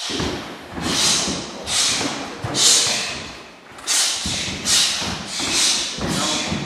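Martial arts kicking drill: a short hissing rush roughly every second, with dull thumps underneath.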